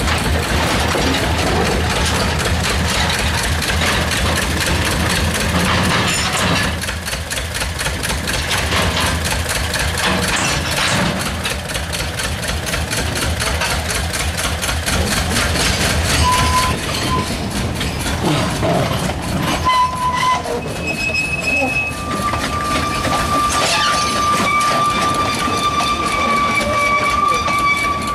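A narrow-gauge train of steel skip wagons clattering past over the track, with the small diesel locomotive at its tail running by about halfway through. Near the end a long high squeal sounds.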